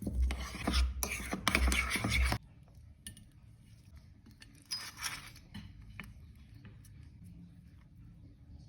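Kitchen utensils and dishes clattering and scraping for about two and a half seconds, then quieter handling with a short scrape about five seconds in.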